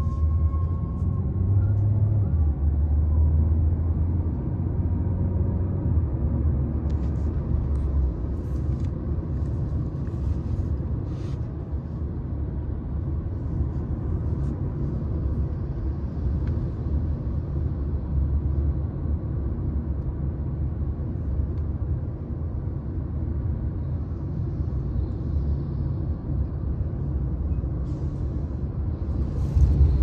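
Steady low road rumble heard inside the cabin of a moving 2023 Hyundai Sonata.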